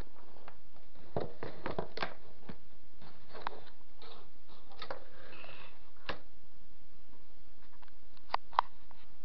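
Cardboard box and packaging of a USB keyboard handled by hand: scattered knocks and short rustles, then two sharp clicks near the end, the loudest.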